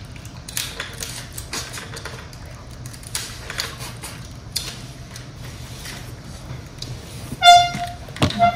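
Scattered light clicks and clinks of tableware over a steady low hum, then a vehicle horn honks twice near the end. The first honk is the loudest sound.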